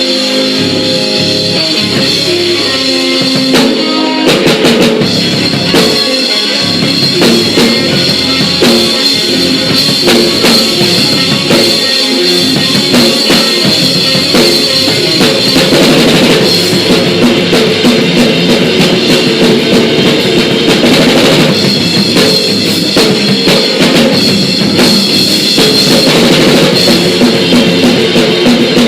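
Rock band playing live and loud: a drum kit with bass drum and snare drives a steady beat under sustained electric guitar chords.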